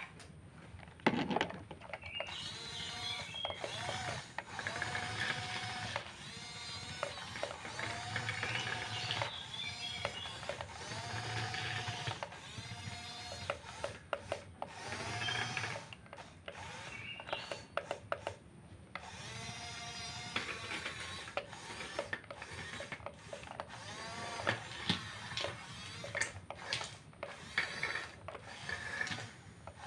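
Small electric motors and gearboxes of radio-controlled model construction machines whining in short rising-and-falling bursts about every one and a half to two seconds, with scattered clicks. The loudest click comes about a second in.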